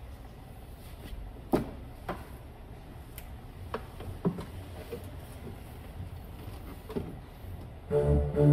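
Scattered wooden knocks and thumps at an organ console as socked feet move onto the wooden pedalboard, the sharpest about one and a half seconds in. Near the end the organ starts playing, with sustained notes over a low pedal bass.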